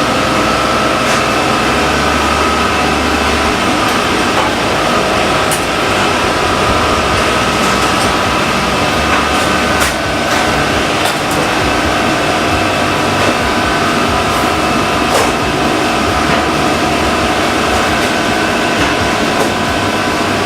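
Steady, loud machinery drone with a few thin whining tones held steady throughout, and occasional light clicks.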